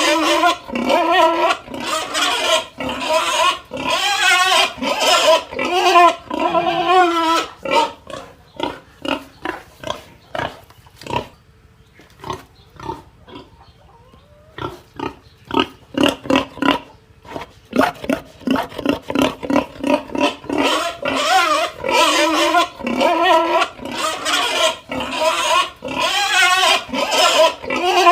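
Pig squealing and grunting in a long run of loud, wavering cries. About eight seconds in it eases into short separate grunts and a quieter stretch, then squeals loudly again from about eighteen seconds.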